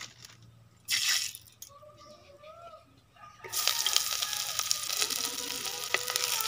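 Chopped ingredients hitting hot oil in a clay kadhai: a sudden loud sizzle starts about three and a half seconds in and keeps crackling, with the scrape of a wooden spatula stirring.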